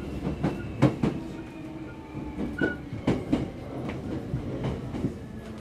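Hankyu 5300 series electric commuter train running, heard from inside the car: a steady rumble with irregular sharp clicks of the wheels over rail joints.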